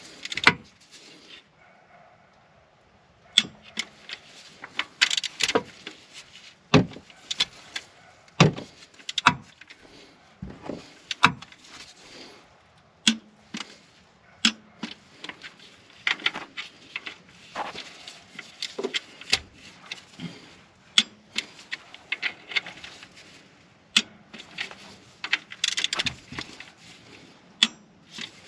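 Hand ratchet clicking in short quick runs, with metal clinks and knocks of socket and tools, as the mounting bolts of a Kia Telluride's oil filter housing are run down. The clicks come irregularly, some single and some in rapid strings.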